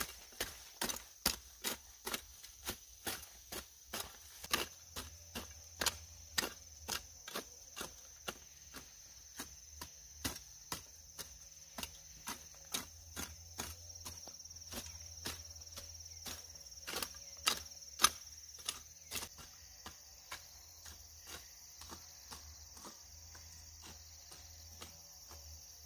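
A hand hoe chopping into soil as weeds are cut out of peanut rows, a steady run of sharp strikes about two or three a second, fainter over the last few seconds.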